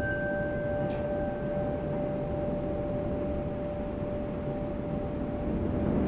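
A wind chime rings out, one low tone holding on and a higher one fading away within a couple of seconds, over a steady low rumble of wind.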